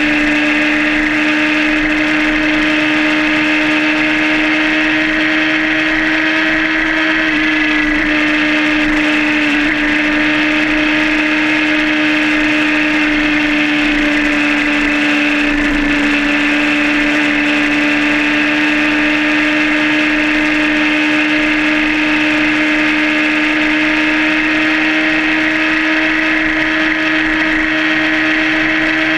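Suzuki GSR600 inline-four motorcycle engine running under way at steady revs, holding one even engine note throughout, over a constant rush of wind and road noise.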